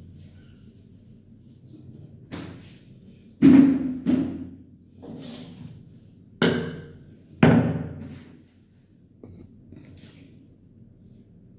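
Several thuds and knocks on a marble bathroom counter during cleaning, the loudest four in the middle, as bottles and cleaning items are moved and set down and the counter is wiped with a cloth.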